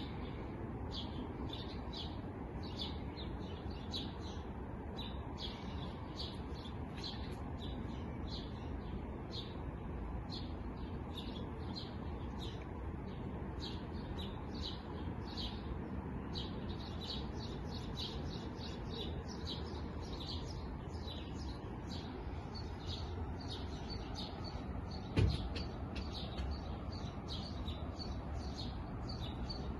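Small songbirds chirping busily, many short high chirps overlapping without pause, over a steady low rumble. A single thump stands out a few seconds before the end.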